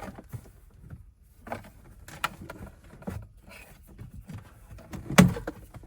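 Plastic knocks from a Toyota Kluger's glove box compartment being handled and shut: a few light knocks, then one much louder knock about five seconds in.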